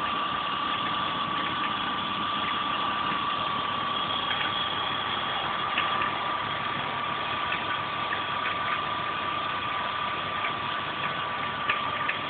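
BMW E36 320i's inline-six engine idling steadily, with a constant high whine and scattered light ticks: the noises its owner cannot identify.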